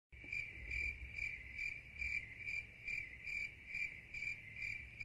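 A cricket chirping in a steady, even rhythm, a little over two chirps a second, all on one high pitch.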